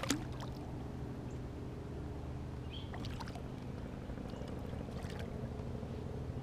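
Water lapping around a kayak over a steady low hum, with a few faint clicks about three seconds in.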